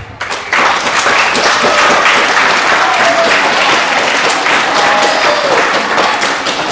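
Loud applause from an audience of schoolchildren, rising sharply about half a second in and then holding steady.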